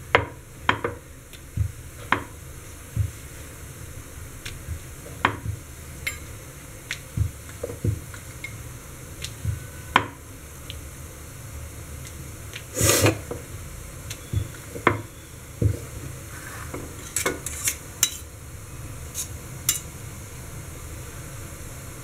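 Wooden rolling pin knocking and clicking against a chakla (rolling board) as a momo wrapper is rolled out: irregular single knocks about once a second, with a longer scraping rattle about thirteen seconds in.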